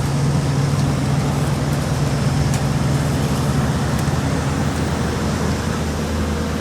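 Heavy asphalt paving machinery, a paver or roller, running its engine with a steady low drone.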